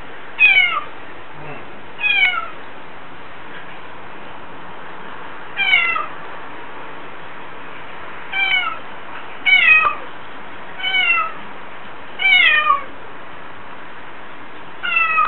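Domestic cat meowing repeatedly, about eight short calls each falling in pitch, spaced from one to several seconds apart. These are lonely, plaintive cries from a cat that grows anxious when its people are away.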